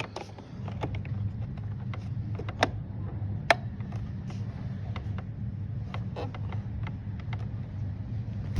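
Plastic clicks and creaks from handling the parts of a Shark Navigator upright vacuum as its pre-motor filter is fitted back in. The sharpest clicks come about two and a half and three and a half seconds in, over a steady low hum.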